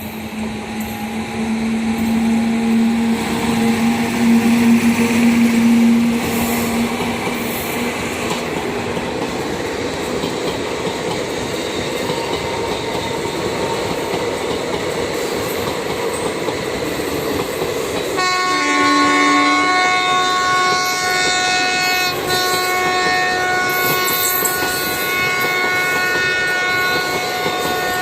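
Indian Railways express train running past, its wheels clattering over the rails, loudest in the first six seconds. About two-thirds of the way through, the locomotive sounds one long, steady multi-tone horn, likened to a shankh (conch shell), held almost to the end.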